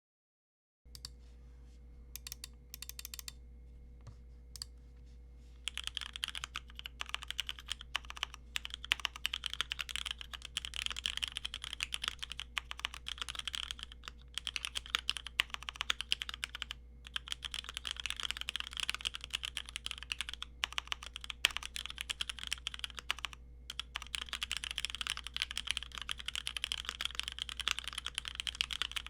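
Typing on a Keychron Q1 mechanical keyboard (barebone no-knob version) fitted with lubed Cherry MX Black linear switches: a few separate keystrokes at first, then fast, continuous typing from about five seconds in, broken by a few brief pauses.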